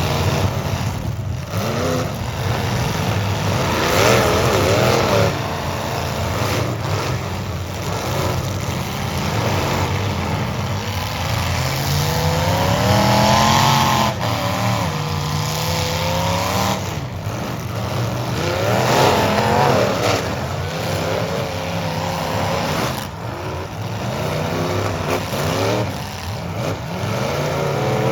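Full-size demolition derby cars' engines revving up and down, with several engines running at once and tyre noise. A few sudden bangs cut through.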